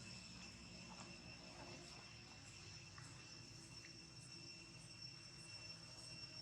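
Near silence: a faint, steady, high-pitched insect drone over a low background murmur, with a few soft clicks.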